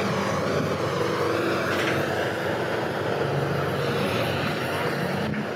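Steady vehicle noise from a car or truck driving: an even road hiss with a low engine drone underneath.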